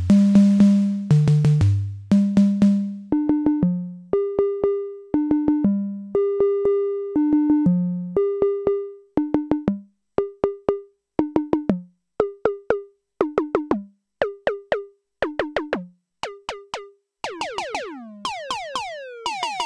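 Noise Engineering Tymp Legio Eurorack drum module playing a sequenced rhythm of pitched synthesized drum hits while its Decay knob is turned. The hits ring out for about a second at first, grow short and clipped by the middle, and near the end become fast falling pitch sweeps.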